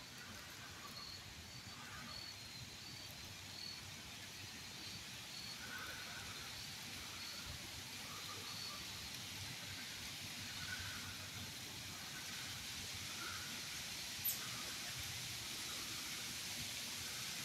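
Outdoor woodland ambience: a steady rustling hiss, with faint high chirps repeating about twice a second through the first half, and a single sharp click near the end.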